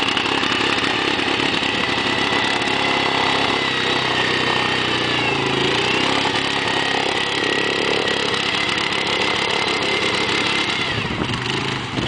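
Quad ATV engine running steadily under throttle as the machine is stuck in mud and pushed free, with a high whine over the engine note. The pitch dips briefly about halfway, and the engine eases off near the end.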